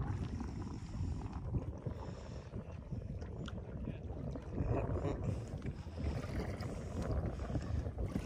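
Wind buffeting the microphone on an open fishing boat: an irregular low rumble with no engine running.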